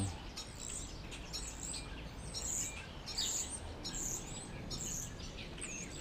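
Several songbirds chirping in the trees, short high calls repeating about once a second and overlapping, over a low steady rumble.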